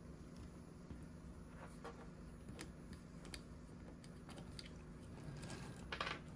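Faint scattered clicks and taps of small 3D-printed resin model parts being handled, a tire pressed onto a wheel, over a faint steady hum. A short, louder scratchy sound comes near the end.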